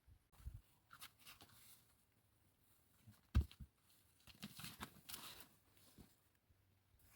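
Faint, scattered rustling and crunching of handled material, with one dull thump about three and a half seconds in and a longer spell of rustling a second later.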